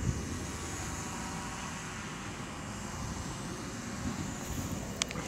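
Steady low rumbling outdoor noise, with a few sharp clicks near the end.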